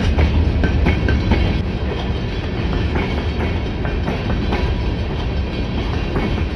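Freight train cars rolling past: a steady low rumble with wheels clicking over the rail joints.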